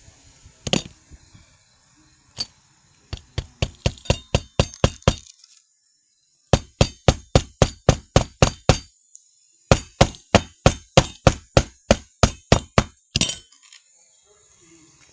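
Hammer driving roofing nails through a replacement shingle: a couple of single blows, then three quick runs of rapid strikes, about five a second.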